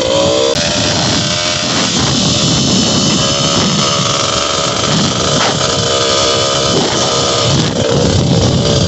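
Kawasaki KMX125's two-stroke single-cylinder engine running as the motorcycle is ridden, its revs rising and falling, over a steady hiss.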